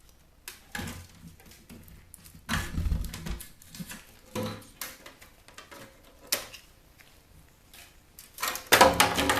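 Intermittent clunks, clicks and rattles of a plastic CD-changer shell being handled while its wires are snipped off with cutters, with the loudest clatter near the end.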